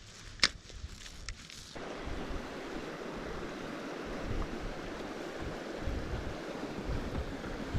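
Wind blowing across the microphone: a steady rushing noise with uneven low buffeting that starts abruptly about two seconds in. Before it come a few light clicks and one sharp click.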